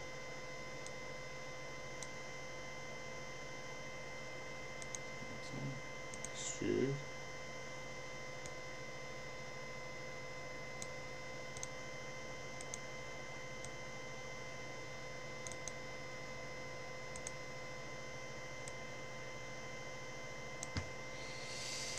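Scattered single computer mouse clicks over a steady electrical hum with steady tones in it; a brief murmured voice about six to seven seconds in.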